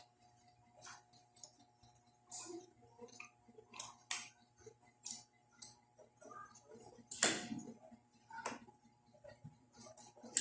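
Close-up eating sounds: scattered wet clicks, smacks and chewing noises at an uneven pace, with one louder sharp sound about seven seconds in, over a faint steady hum.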